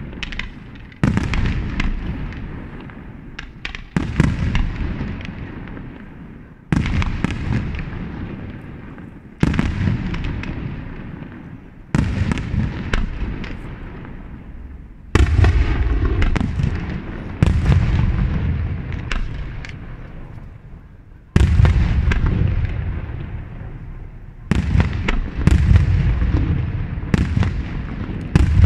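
Aerial firework shells of a Pirotecnica Itria display bursting in loud booms, one every two to three seconds, with a few quicker bursts near the end; each boom trails off in a long, fading echo.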